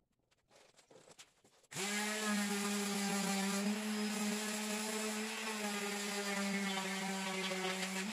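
Small electric palm sander switched on nearly two seconds in and running steadily, sanding the green paint off a riding mower's sheet-metal body panel down to bare metal. A few light handling clicks come before it starts.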